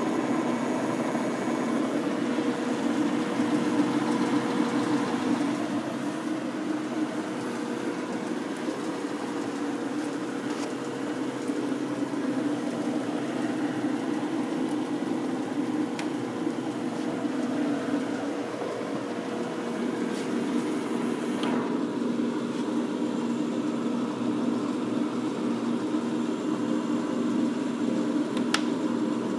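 American Pacemaker engine lathe running under power, its motor and oil-fed headstock gearing humming steadily and quietly now that it has been freshly oiled. A few faint clicks come through the hum.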